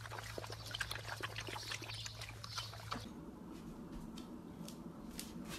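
Puppies lapping water from a plastic paddling pool: quick, irregular wet clicks and small splashes. About three seconds in, this gives way to a few sparse clicks as a dog paws over a tile floor.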